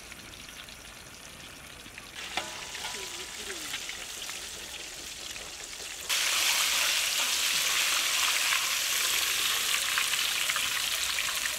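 Battered chicken wings deep-frying in hot oil in a kadai: a dense crackling sizzle that comes in suddenly and loud about six seconds in, after a softer hiss.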